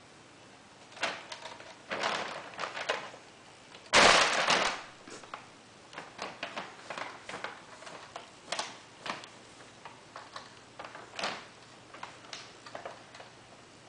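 Irregular taps, clicks and rattles from a plastic cat play frame and its dangling toys being batted and knocked by a kitten, with one loud clatter about four seconds in.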